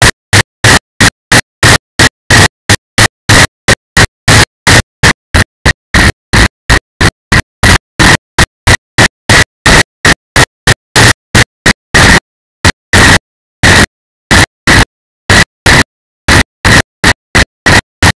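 Loud, distorted noise chopped into rapid bursts, about three or four a second, with dead silence between them and a longer break about twelve seconds in: the recording's audio is breaking up and dropping out.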